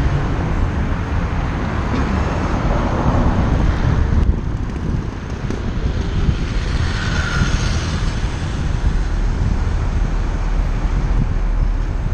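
Steady rush of wind on the microphone and road noise from a moving vehicle, with city traffic going by.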